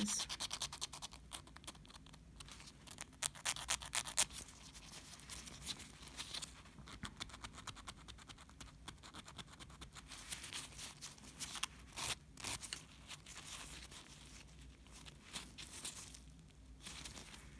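Narrow abrasive stick file rasping against a sculpted acrylic-gel nail tip in quick, short back-and-forth strokes, faint and scratchy. The strokes come in runs with brief pauses, working into the tight curves of the tail shape.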